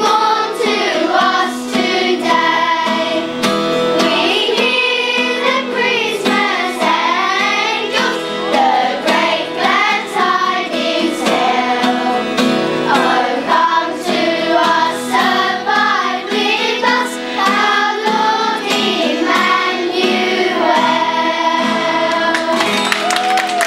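A children's school choir singing a Christmas carol together.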